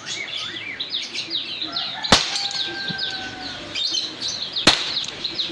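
Two shots from a Beretta 84FS blowback BB pistol, about two and a half seconds apart, the first followed by a brief ringing tone. Birds chirp throughout.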